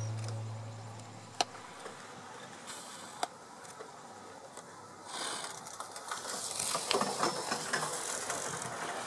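Background music fades out in the first second, followed by a couple of sharp clicks. From about five seconds in comes a crackly rush of splashing water as hippos surge through the river.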